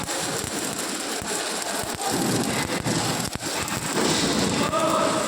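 Electric arc welding on pipe, a steady frying crackle from the arc.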